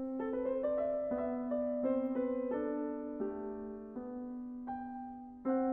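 Piano playing a slow melody, one note after another, over held lower notes.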